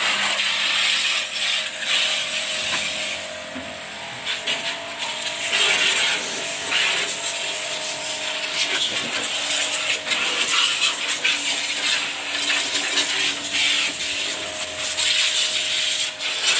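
A power tool running with a steady whine under a loud, rough rubbing noise that swells and dips, as in machine sanding or abrading of a car body.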